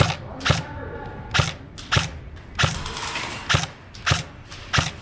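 Airsoft rifle firing single shots: sharp mechanical clicks with a light thud, about one every half-second to second, eight in all, at an uneven pace.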